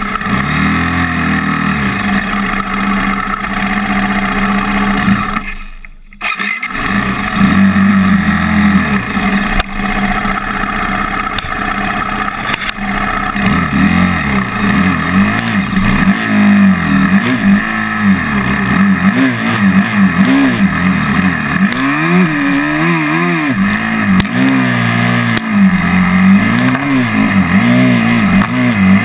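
Trail motorcycle engine running with repeated throttle blips, its pitch rising and falling over and over. The sound fades and breaks off for about half a second around six seconds in, then picks up again.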